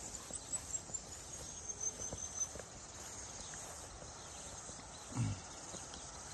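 Faint footsteps outdoors, a scatter of soft irregular steps over the first couple of seconds, with insects chirping high in the background. A brief low vocal sound about five seconds in.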